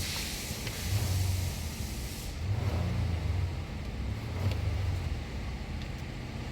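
2024 Nissan Pathfinder's 3.5-litre V6 running just after starting, its low note swelling and easing a few times, with a hiss that fades about two seconds in. It now starts and runs on a newly fitted fuel pump control module, the part that had left it cranking without starting.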